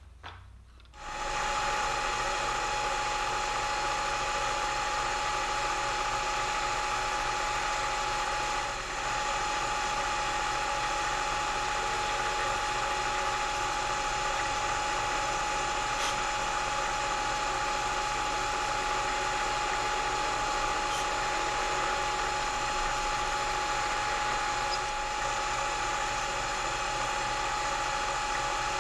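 Milling machine spindle starting about a second in and then running steadily with a whine, driving a small twist drill through a brass tag and into an aluminium block.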